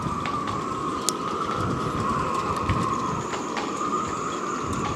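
Wind gusting across the microphone, with a steady whistling tone over the rushing noise and a few light clicks.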